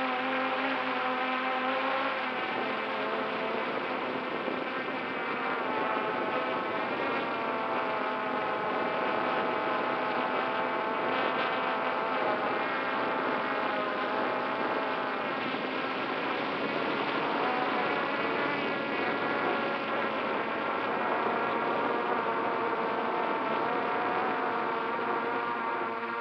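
FPV quadcopter's electric motors and propellers buzzing, heard from the drone's onboard camera, with several pitches drifting up and down as the throttle changes.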